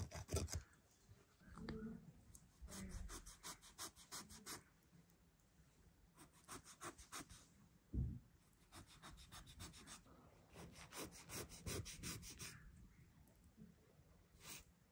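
Kitchen knife scoring through the scales and skin of a whole grass carp on a wooden board: short runs of quick crunching, scraping clicks as the blade saws through the scales, with pauses between cuts. A single knock about eight seconds in.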